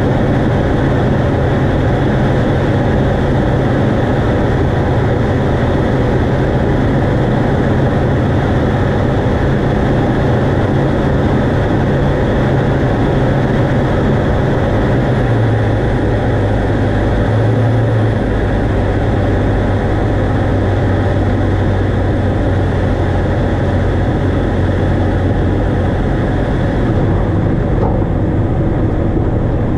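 Engine and propeller of a JMB VL3 light aircraft running steadily on final approach and into the landing roll, a loud drone with a low hum. The hum drops slightly in pitch about halfway through.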